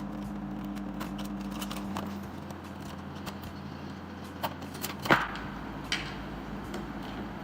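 Scattered clicks and light knocks of plastic and metal parts being handled as a spiral-coil motor is detached from a vending machine goods tray, the sharpest click about five seconds in. A low steady hum stops about two seconds in.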